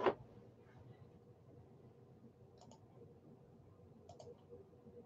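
A sharp click right at the start, then two faint short clicks a second and a half apart later on, over quiet room tone with a faint steady hum.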